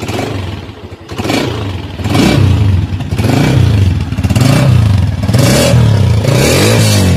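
Honda CG125S single-cylinder four-stroke engine running and being revved with the throttle, its note rising and falling about once a second and quickening near the end.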